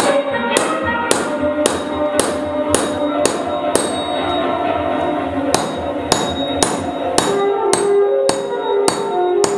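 A hammer driving a common nail through a paperback book into an oak board, striking evenly about twice a second, with a pause of about a second and a half midway before the strikes resume. Orchestral music plays underneath.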